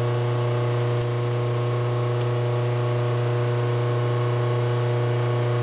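Steady electrical mains hum with a row of evenly spaced overtones. Two faint metallic ticks about one and two seconds in, from duckbill pliers bending loops into the end of a steel extension spring.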